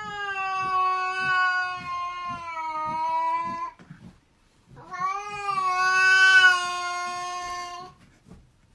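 A domestic cat giving two long, drawn-out yowling meows, each held for about three to four seconds at a steady, slightly sagging pitch, with a short pause between them.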